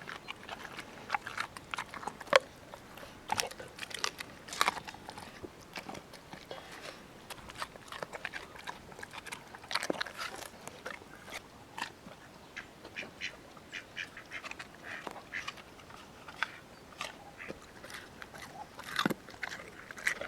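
Weimaraner eating raw dog food: irregular bites and chewing, with sharp crunches every second or so.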